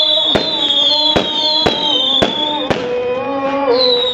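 Fireworks going off in a quick series of sharp bangs, about two a second, with high falling whistles sounding over them.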